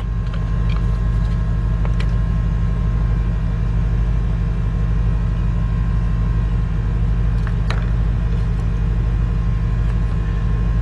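A steady low engine drone, like a vehicle idling close by, with a light click about two seconds in and another near eight seconds as plastic battery cell caps are prised off with a screwdriver.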